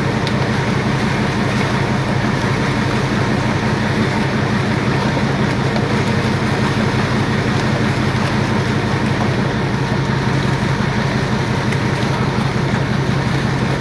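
Fishing boat's inboard engine running steadily, a low, even pulsing drone.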